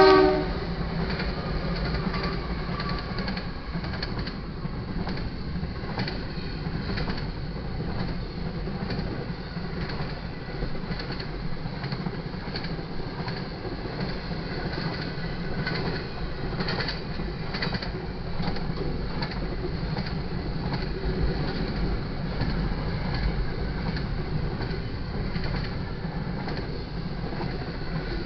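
Freight train passing close by: GE diesel locomotives, then double-stack intermodal container cars. It makes a steady low rumble with sharp, irregular clacks of wheels over the rails. The locomotive horn cuts off right at the start.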